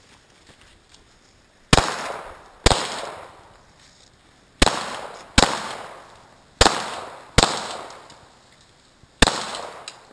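Glock 22 .40 S&W pistol firing seven shots, mostly in quick pairs less than a second apart, each sharp crack trailing off in an echo.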